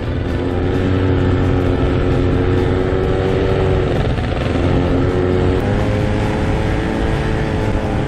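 Snowmobile engine running steadily under way. Its note dips briefly about halfway through, then picks up again.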